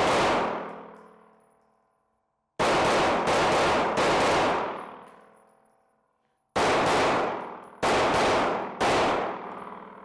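9mm Glock pistol firing two strings of quick shots with a pause between them, each shot followed by a long ringing decay. The gun keeps cycling from the aftermarket magazine without a stoppage.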